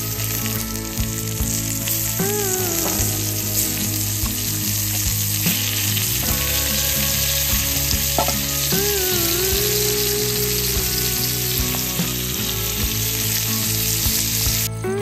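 Marinated chicken pieces sizzling steadily in ghee on a hot clay roof tile over a wood fire.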